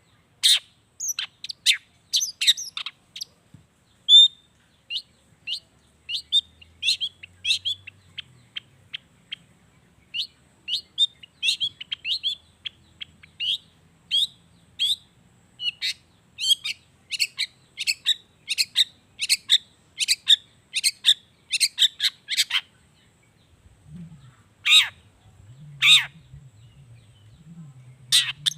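Long-tailed shrike (cendet) singing a fast run of short, sharp chirps, two to three a second. Near the end a brief pause is followed by two louder notes that sweep downward.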